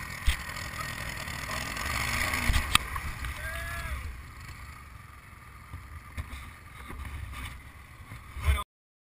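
ATV engines running at low speed, with wind rumbling on the microphone and a few sharp knocks; the sound cuts off suddenly near the end.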